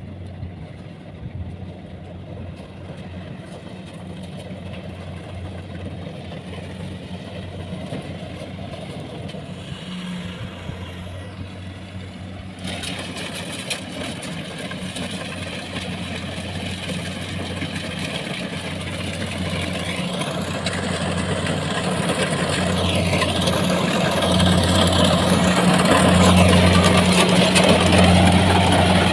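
Rice combine harvester engine running steadily and growing louder. About twelve seconds in, its sound turns suddenly fuller and hissier.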